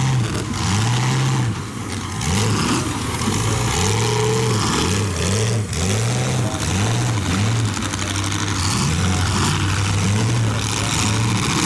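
Demolition derby big cars' engines revving hard over and over, the pitch rising and falling every second or so under a constant wash of engine and exhaust noise.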